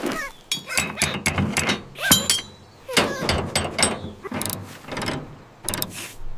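A rapid, irregular series of sharp clicks and clattering knocks.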